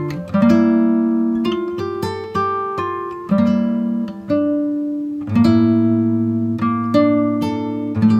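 Background music: a plucked acoustic guitar playing a gentle run of picked notes and chords, each ringing out and fading before the next.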